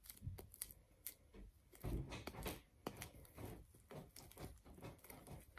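Cloudy slime made of glue and shaving cream being kneaded and squeezed in the hands: faint, irregular sticky clicks and squelches as the slime is worked to lose its stickiness.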